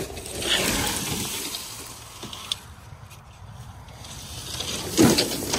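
Rustling and crunching in dry leaf litter and debris around sheets of corrugated tin, with a louder crunch about five seconds in.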